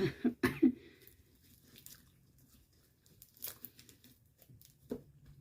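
Homemade slime being squeezed and worked in the hands, making sticky clicking and squelching pops. A few sharp clicks come in the first second, then fainter scattered ones.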